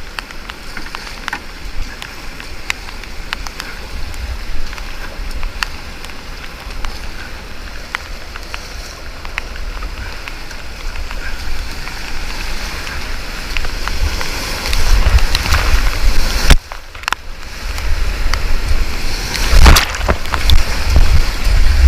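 Whitewater rushing and sloshing around a kayak, with splashes, paddle strokes and water striking the camera, and a low rumble of buffeting. It grows louder in the second half, dips sharply for a moment about two-thirds of the way through, then comes back with heavy splashes.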